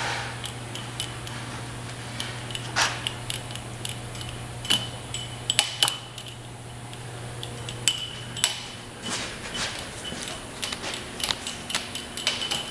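Steady low hum of the Bridgeport Series I CNC mill's axis drives as the MillPWr 2 control moves the table. The hum stops about nine seconds in and a higher-pitched hum follows. Sharp metallic clinks, some of them ringing briefly, are scattered throughout.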